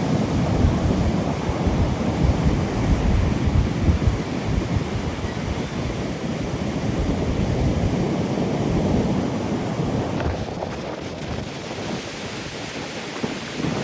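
Heavy surf and gusting nor'easter wind, the wind buffeting the microphone in an uneven low rumble over a steady roar.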